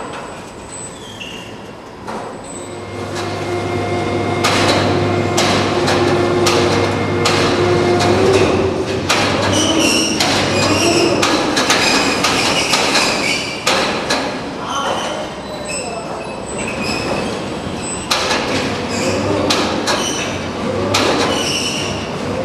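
Steel coil being handled with an overhead crane: the hoist hums steadily from about three seconds in until about eleven, with repeated metal clanks and knocks and short high metallic squeals as the heavy coil is lowered into its cradle.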